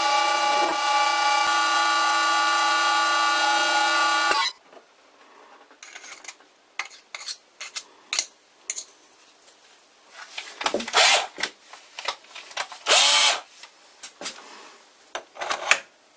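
Vintage Karger lathe running steadily with a gear whine while its carbide insert turns nylon, cutting off abruptly about four seconds in. Then scattered light clicks and scraping as the workpiece is handled, with a few short louder rattling bursts.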